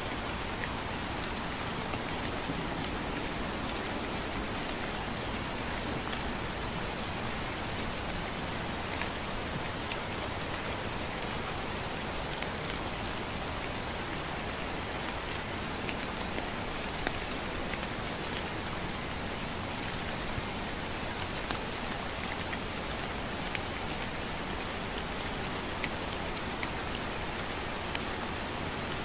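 Gentle rain falling steadily, an even hiss dotted with scattered ticks of single drops landing close by.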